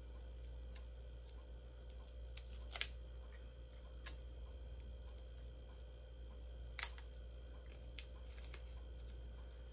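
Small clicks and paper rustles of glue dots being peeled off their roll and pressed onto cardstock cutouts by hand, with two sharper snaps about 3 and 7 seconds in.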